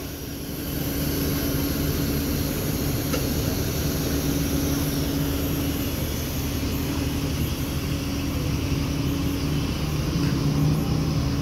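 Steady low drone of an idling diesel engine, with one constant low tone over a rumbling hum.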